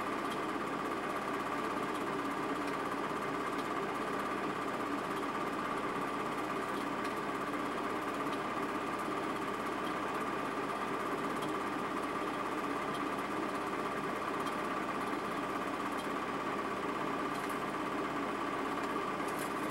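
Film projector running: a steady mechanical whirr with a constant high-pitched tone, unchanged through the whole stretch, the noise of a silent film being played back during transfer.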